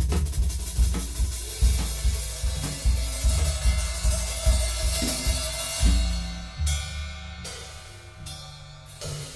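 Background music with a drum-kit beat: bass drum and snare hits about two or three a second, with hi-hat and cymbals. About six seconds in the steady drum hits give way to held bass notes under cymbal hiss.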